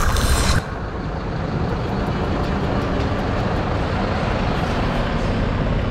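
A brief bright whoosh of a video transition effect in the first half second, then the steady rumble of street traffic and idling vehicle engines.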